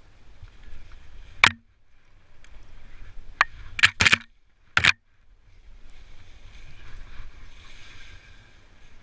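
Skis hissing through powder snow over a low wind rumble on the microphone, broken by about five sharp snaps and knocks, the loudest about a second and a half in and a cluster around four seconds in, as conifer branches strike the skier and camera.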